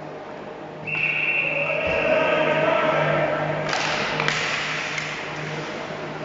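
Voices shouting out on the ice rink, starting suddenly about a second in, with long held calls. Two sharp clacks come about half a second apart partway through, over a faint steady hum.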